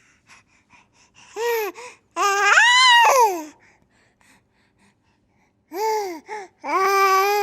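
Baby's happy vocalizing: high-pitched squeals that rise and fall, a short one then a longer one in the first half, a pause of about two seconds, then two more squeals near the end.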